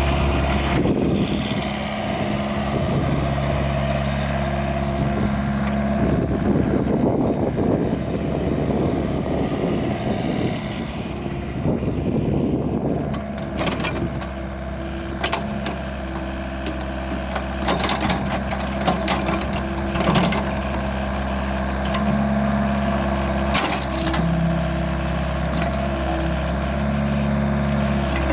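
Hyundai R555-7K excavator's diesel engine running steadily. A rushing surge of noise comes in for several seconds partway through, followed by a series of sharp knocks spaced a few seconds apart.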